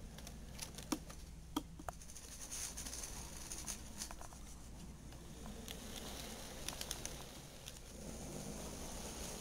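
Small irregular clicks and ticks of HO scale model train cars rolling along sectional track, their plastic wheels clicking over the rail joints, with a few sharper clicks about a second and a second and a half in.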